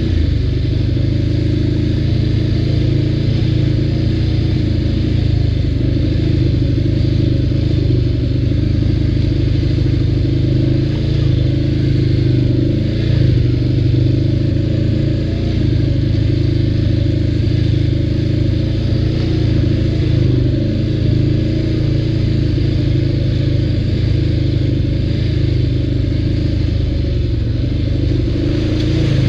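ATV engine running steadily while riding, its pitch wavering slightly with the throttle.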